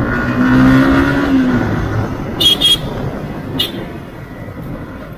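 Yamaha R15 V2's single-cylinder engine running at low speed under light throttle. It holds a steady note, then eases off about a second and a half in, over wind and road rumble. A few short high-pitched beeps come about halfway through.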